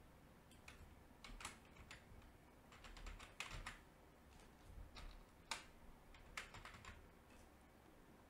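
Faint computer keyboard typing: irregular keystrokes in short clusters, with pauses between them.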